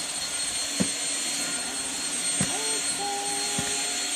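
Shark Rocket corded stick vacuum running with a steady high whine, sucking up spilled oatmeal and sugar from the floor. A few light knocks and some brief pitched sounds come in the second half.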